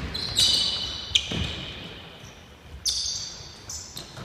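Basketball bouncing on a wooden gym floor during play, a few sharp thuds, mixed with short high sneaker squeaks as players cut and stop.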